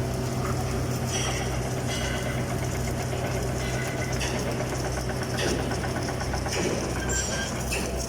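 Steady low hum of submerged-arc welding equipment running while the LT-7 welding tractor lays a weld, with faint scattered higher clicks over it.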